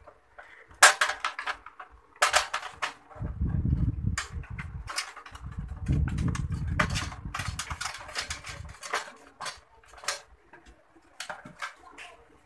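Clicking, rattling and rustling of hands working insulated wires and a plastic straight connector into a sheet-metal circuit breaker enclosure. Two stretches of low rumble from handling run through the middle.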